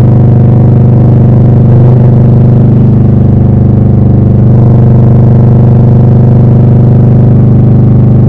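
Harley-Davidson Low Rider S V-twin engine running through Rinehart slip-on mufflers, a loud, steady exhaust note with a small change in tone about halfway through.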